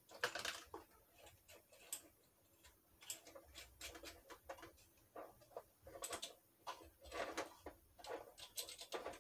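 Irregular clicks, taps and light rattles of plastic kitchen-faucet parts being handled and fitted together by hand, the pull-out sprayer hose being connected to the faucet body. The clicks bunch up just after the start and again around six to seven seconds in.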